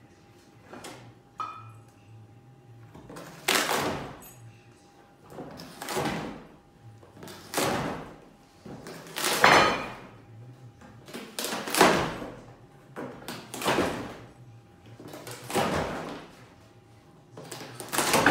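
Caracal biting and tearing at a cardboard box: a rasping rip or crunch of cardboard every second or two.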